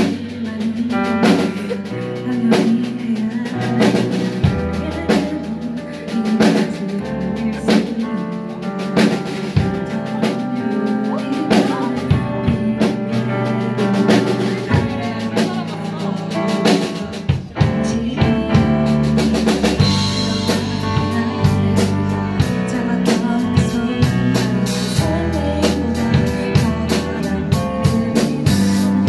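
Live band playing a pop-rock song: drum kit keeping a steady beat under bass guitar, electric guitar and keyboard. A little over halfway through it briefly drops, then comes back fuller, with the cymbals hitting more densely.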